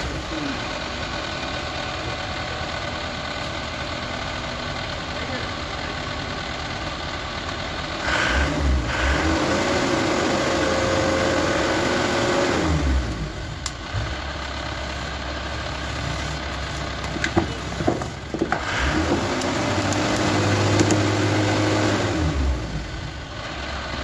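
An engine running steadily, speeding up twice for several seconds each time before settling back, with a few sharp metallic clicks between the two runs.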